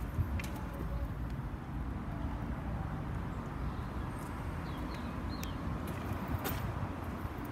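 Steady low rumble of outdoor background noise, such as distant traffic, with a few faint chirps about four to five seconds in.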